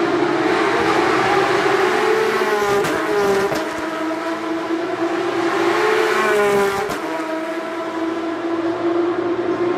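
Race car engines running at high revs on a street circuit. Cars pass close about three seconds in and again near seven seconds, the engine pitch shifting as they go by.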